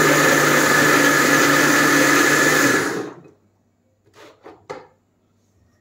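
Electric mixer grinder running at full speed, grinding boiled spinach into a paste; it is switched off about three seconds in and winds down. A few light knocks follow as the jar is handled.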